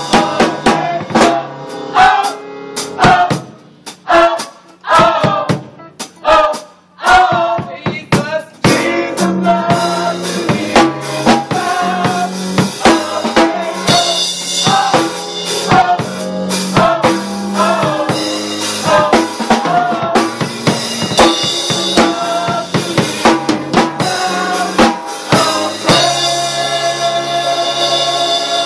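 Live gospel band music led by a drum kit, with bass drum, snare and rimshot hits over bass and keyboard tones. It thins out and drops in level a few seconds in, then comes back fuller with a steady bass line from about nine seconds.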